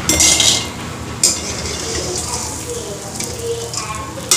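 Oil sizzling in a steel kadhai as fried dried elephant-foot yam pieces are scooped out with a perforated steel slotted spoon. The spoon scrapes against the pan in short bursts near the start, after about a second, and again at the end.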